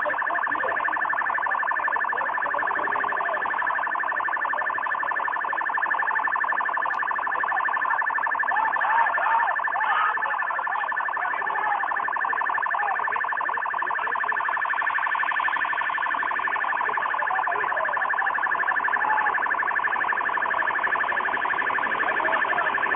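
Continuous electronic alarm sounding steadily, two held pitches with a rapid pulse, set off at the crash site of the burning twin-engine plane.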